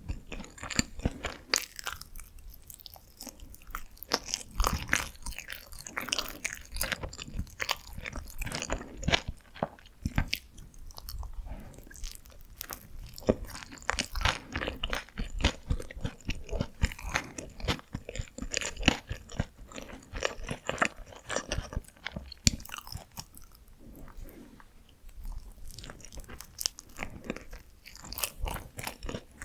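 Close-miked chewing of Korean steamed buns (hoppang): an irregular, continuous run of short mouth clicks and smacks as the soft dough and filling are bitten and chewed.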